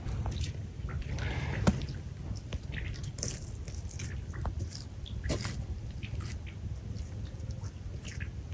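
Beavers under river ice: a scatter of irregular clicks, knocks and brief squeaky sounds, with one sharp click under two seconds in, over a low steady rumble.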